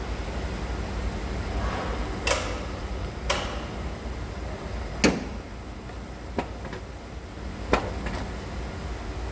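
About five sharp knocks, a second or more apart, over a steady low rumble: tools and metal parts knocking during truck clutch work.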